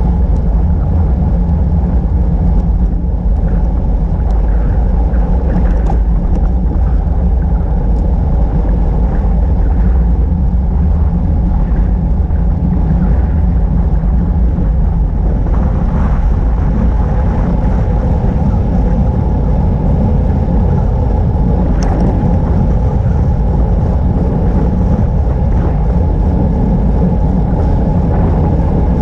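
Wind buffeting the microphone of a bicycle-mounted camera while riding along an asphalt road: a steady, loud low rumble that does not let up.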